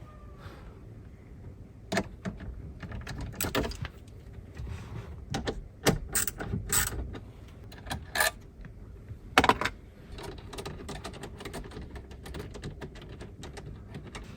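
Plastic dashboard trim of a Toyota Alphard being pried off and handled: irregular sharp clicks and knocks of plastic panels and clips, a few louder snaps spread through the middle of the stretch.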